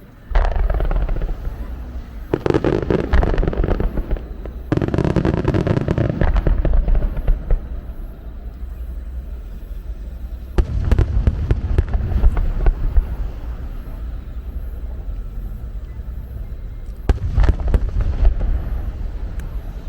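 Fireworks finale barrage: a rapid, continuous run of shell bursts and crackling with deep booms. It starts abruptly about a third of a second in and comes in waves, with fresh surges several times.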